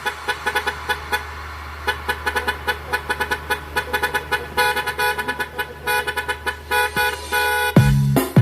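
Truck horn tooting in a rapid run of short blasts over a steady low hum. A heavy bass beat cuts in near the end.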